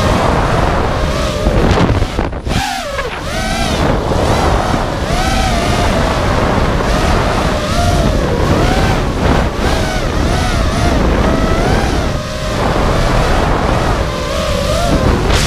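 Brushless motors and tri-blade 5-inch props of an FPV racing quadcopter (T-Motor F40 2400KV) whining, the pitch sliding up and down as the throttle changes, over wind noise on the onboard camera's microphone. The whine drops out briefly about two seconds in and dips again near twelve seconds, as throttle is cut and picked back up.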